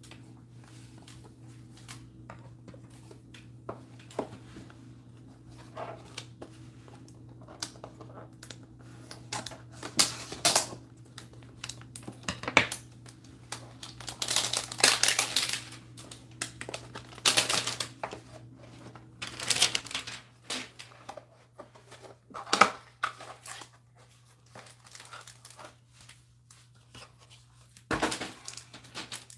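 A 2020 Panini Select Football hanger box being torn open by hand: cardboard tearing and the plastic-wrapped cards crinkling in irregular bursts, busiest through the middle and once more near the end, over a low steady hum.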